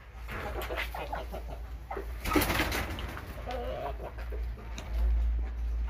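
Domestic chickens, a gamecock rooster and hens, clucking softly with short scattered calls. There is a brief rustling burst about two and a half seconds in, over a steady low rumble.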